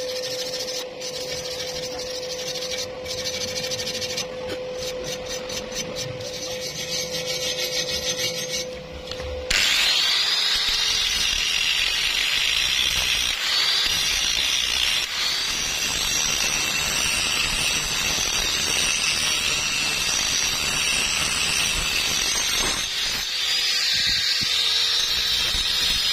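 A steady hum with hiss, then about a third of the way in a power tool starts loud and runs working metal. Its whine dips and recovers in pitch as it is loaded. It breaks off briefly near the end and starts again.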